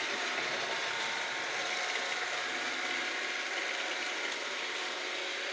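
Roomba robot vacuum running: a steady whir of its vacuum motor and brushes as it cleans the floor.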